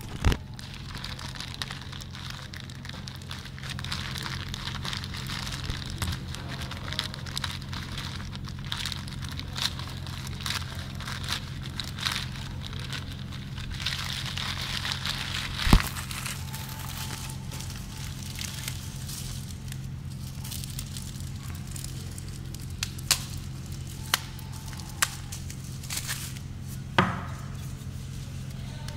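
Plastic wrapping crinkling and rustling as it is torn open by hand, with sharp snaps and clicks now and then, the loudest about halfway through and several more near the end. A steady low hum runs underneath.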